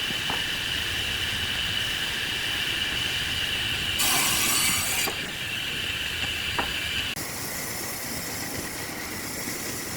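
Wood lathe spinning a workpiece while a turning tool cuts it: a steady high squeal over hissing, with a louder, brighter scraping stretch about four seconds in and an abrupt drop in level about seven seconds in.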